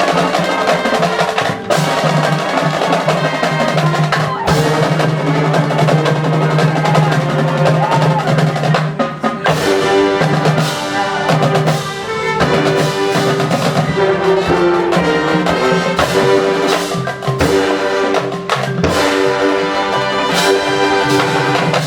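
High school marching band playing loudly: brass ensemble with trumpets and low brass holding sustained chords over snare and bass drums, with many sharp drum hits.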